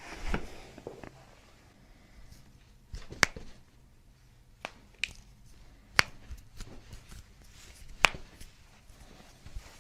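Several sharp single clicks, one to two seconds apart, from hands-on chiropractic work on a patient on the treatment table, in a quiet room.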